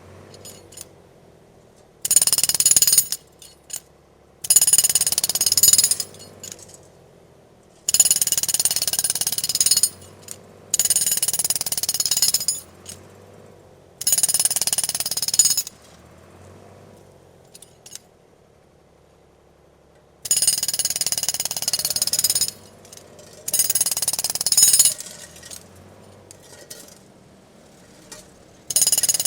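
Pneumatic rock drill or jackhammer running in about eight bursts of one to two seconds, with short pauses between them. A low, steady machinery hum continues through the pauses.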